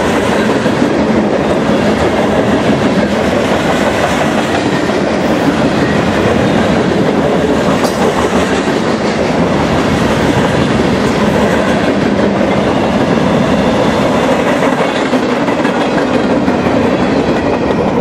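Freight train's hopper cars and boxcars rolling past at speed, a steady loud rumble with wheels clattering over rough, jointed track at a grade crossing.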